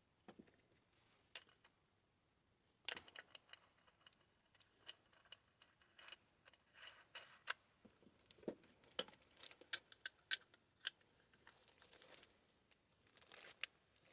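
Faint, scattered clicks and knocks of a plastic-bodied angle grinder and its guard and handle being handled and adjusted, with a busier run of clicks near the middle.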